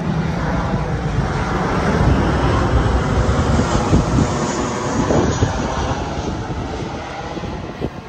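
Loud rumble of a passing engine, swelling over the first few seconds and easing off toward the end.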